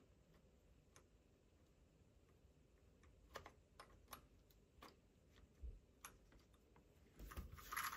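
Near silence, broken by scattered faint clicks and taps of small parts being handled on an RC car's motor mount, with a short run of louder clicks near the end.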